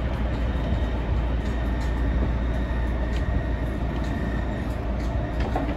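Electric train of the Jōshin Electric Railway running on the track, heard from inside the front car. There is a steady low rumble of wheels on rail, with a faint high whine that fades about four and a half seconds in.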